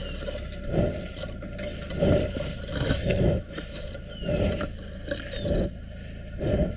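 A lioness mouthing a GoPro camera: teeth and tongue scraping and rubbing against the camera body, heard from the camera itself as irregular dull scrapes about once a second.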